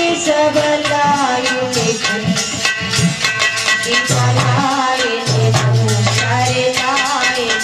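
Indian devotional folk music: harmonium playing held notes and a wavering melody over a fast, steady shaken-rattle percussion beat.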